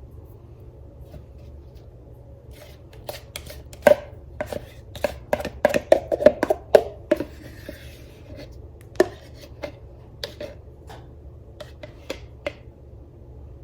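A metal spoon knocking and scraping against a bowl and a fine strainer as thick Greek yogurt is spooned in, in a run of irregular clicks and taps, with a short scrape near the middle. A steady low hum lies underneath.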